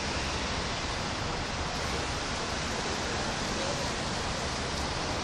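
Steady rain falling on leafy trees and a paved street: an even, unbroken hiss.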